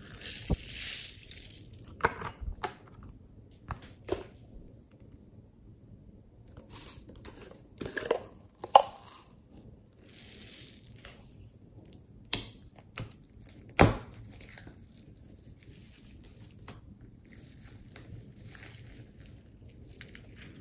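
Sprinkles and foam beads poured from plastic containers into a glass dish of glossy slime, heard as a hiss at the start and again around the middle, with sharp clicks and knocks as the plastic containers are handled over the dish. Near the end, quieter sounds of the slime being stretched and folded by hand.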